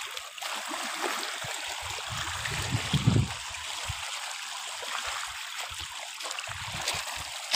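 Small waves lapping and washing over a pebble shore, a steady watery hiss, with irregular low rumbles of wind on the microphone, the strongest about three seconds in.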